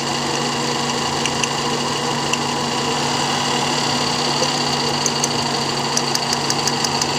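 Toyota Vios 2NZ-FE four-cylinder engine idling steadily while misfiring, with sharp ticks, a few scattered at first and about three to four a second from about five seconds in. The misfire is traced to ignition coil number 1, whose current keeps cutting in and out.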